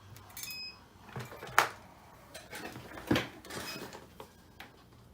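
Workbench handling noises: scattered clicks and knocks as the board and tools are moved to the microscope, with two faint short high beeps.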